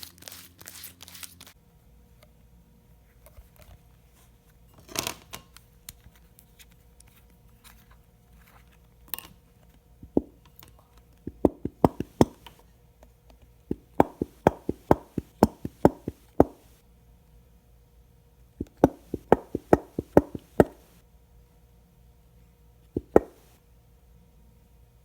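Clear slime being mixed and kneaded: sharp clicks and knocks, a few single ones and then runs of about two to three a second lasting a couple of seconds each, with the last one near the end.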